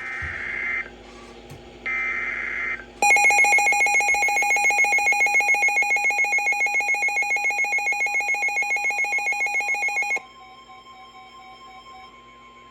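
Emergency Alert System broadcast tones. First come two short bursts of the screeching data header, then a loud alert attention tone that pulses several times a second for about seven seconds and cuts off sharply. A faint steady tone follows.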